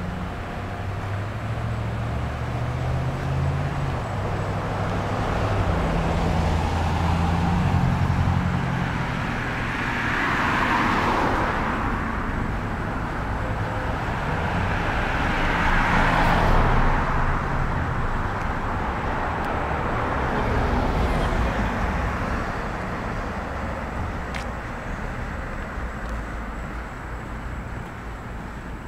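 Road traffic: a low engine rumble from a slow-moving car, then cars passing one after another, each a swell of tyre noise that rises and fades, the loudest about eleven and sixteen seconds in.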